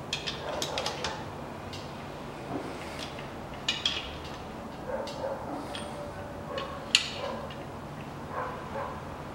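Engine bolts being angle-tightened with a hand wrench, each turned a further 90 degrees after torquing. Scattered metallic clicks and knocks of the tool, with a brief creak in the middle and the sharpest click about seven seconds in.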